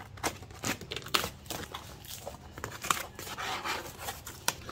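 Cardboard shipping box being cut and torn open with a pocket knife: irregular scraping, tearing and crinkling of cardboard and packing tape, with a longer rasping scrape about three seconds in.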